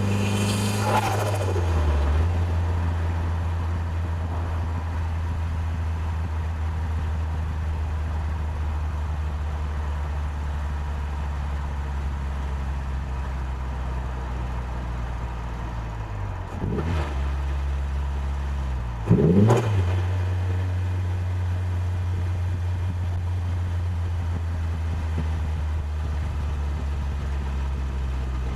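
Nissan Silvia S14a's turbocharged SR20DET four-cylinder engine running at a steady low note. There are a few brief rev changes, the loudest a quick dip and rise in revs about two-thirds of the way through.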